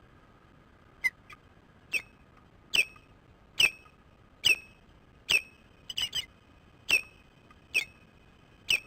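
Osprey giving a run of short, sharp hiccup-like chirps, about ten in a row at a steady pace of a little more than one a second, with a quick burst of three near the middle.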